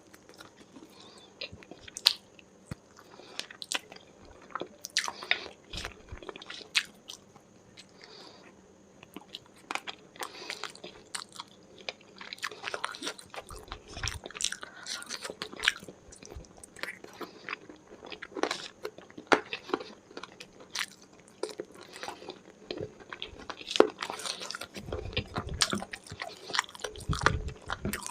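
Close-miked chewing and biting: wet mouth clicks and crunches from eating chicken curry with rice, raw onion and chili. Sharp clicks come thick and irregular throughout, with a few brief low thuds in the second half.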